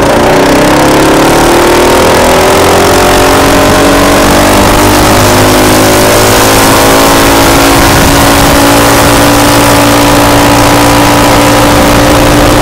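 Coleman RT200 minibike's Predator 224cc single-cylinder engine, built up and running on an E50 ethanol mix, climbing in pitch under acceleration over the first few seconds, then holding a steady pitch at cruise. Heavy wind rush on the microphone.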